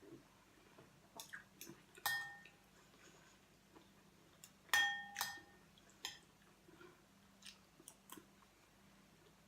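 Eating sounds: soft chewing and mouth clicks, with two ringing clinks of a spoon against a soup bowl, about two seconds in and about five seconds in.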